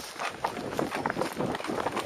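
Quick, irregular footfalls of a person running over the ground.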